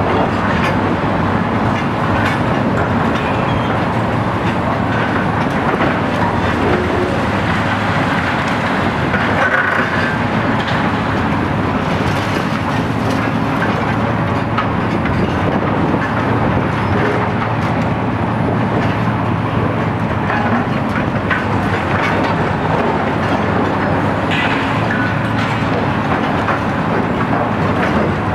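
Heavy demolition excavators at work, a high-reach machine and a second excavator: diesel engines running steadily under load, with continuous crunching and clattering of broken concrete and rubble.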